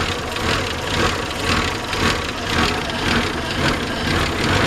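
1987 Acura Legend's 2.5-litre 24-valve V6 idling with the hood open, its running swelling and dipping about twice a second. The idle is a little rough and low, which the owner puts down to water in the distributor cap from a coolant flush.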